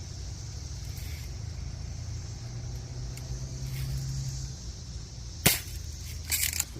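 A BB gun fires once with a sharp snap about five and a half seconds in, followed a moment later by a brief rattling clatter, over a steady low hum.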